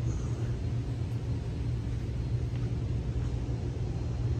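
Steady low droning rumble of an underground metro station platform's background noise, even and unchanging throughout.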